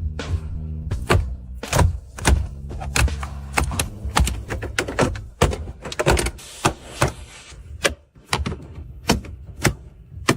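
A rapid series of sharp clicks and knocks, about two a second, over a low steady hum that stops about halfway through.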